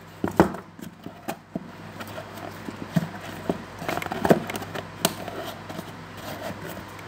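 Uno playing cards and their cardboard box being handled on a table: irregular light taps, clicks and rustling, with a sharper knock about half a second in and a few more around four seconds in.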